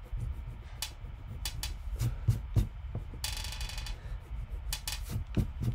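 Scattered light taps and knocks of a hand and eraser against the paper and wooden drawing table while charcoal shading is lifted with the eraser. There is a short buzzing rasp a little past three seconds in.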